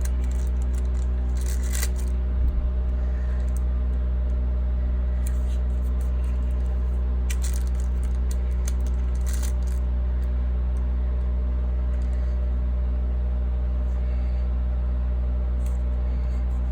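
A steady low hum, with brief soft crackles from sticker sheets and paper being handled as stickers are peeled and placed in a planner, and one soft bump about two and a half seconds in.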